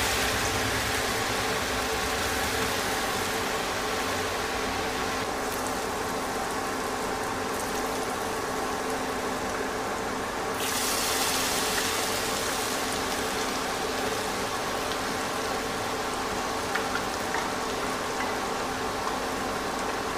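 Boondi (drops of gram-flour batter) frying in hot desi ghee, a steady sizzling and bubbling. The high hiss eases about five seconds in and picks up again about halfway through.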